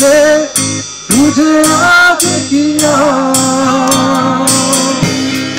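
Live rock band: a male singer with electric guitar and drum kit. The vocal line bends and breaks off briefly about a second in, then settles into a long held note over steady cymbal strokes.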